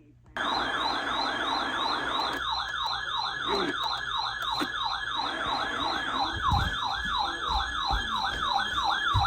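Electronic siren sounding a fast yelp: a tone sweeping up and down about two and a half times a second. It cuts in abruptly just after the start, with a few low thumps in the second half.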